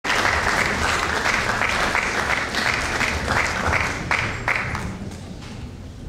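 Audience applauding, the clapping thinning out and dying away near the end.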